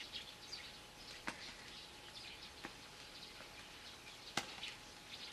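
Faint outdoor ambience of many small bird chirps, with three short sharp knocks, the last and loudest near the end.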